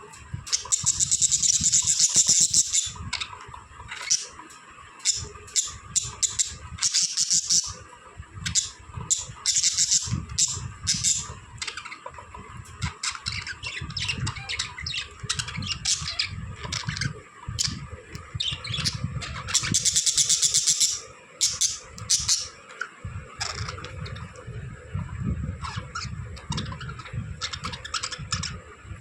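Pet budgerigars chirping and chattering: a steady run of short, high chirps, broken by two louder spells of shrill, continuous warbling, one about a second in and another about twenty seconds in.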